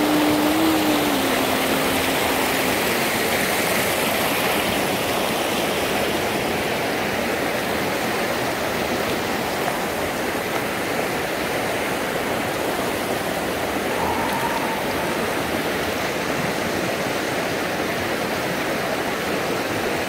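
Mountain river rushing over rocks and small rapids: a steady, full rush of water.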